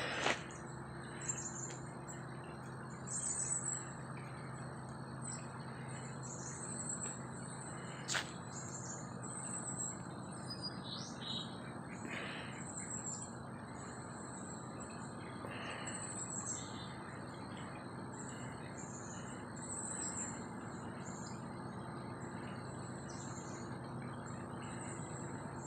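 Small songbirds chirping over and over with short, high, downward-sliding calls, over a steady low background hush and a faint steady high whine.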